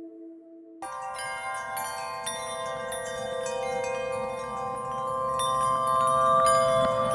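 Background music: one ambient track fades out, and about a second in a new piece begins with layered ringing chime-like tones that build steadily louder.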